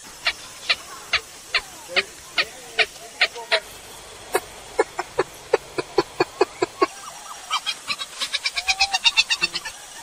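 Purple gallinule (kalim) calling: a string of short, sharp notes, about two or three a second, then from about seven seconds in a faster, louder run of notes that peaks near the end.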